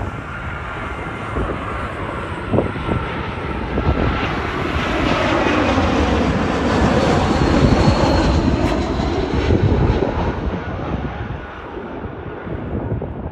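Jet engines of an American Airlines Airbus A319 on landing approach, flying low overhead. The engine noise with a high whine grows louder, peaks with a sweeping, shifting tone as the aircraft passes above, then fades away behind.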